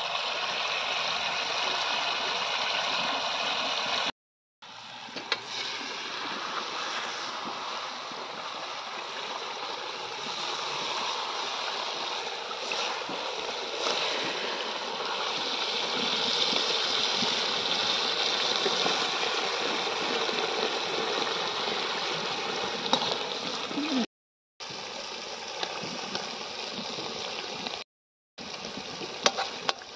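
Curry gravy sizzling and bubbling in a kadai over a wood fire, with a metal ladle now and then knocking against the pan. The sound drops out briefly three times.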